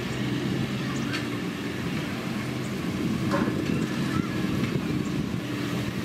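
Motor grader's diesel engine running steadily as the machine works along a dirt road, with a few faint short chirps above the engine.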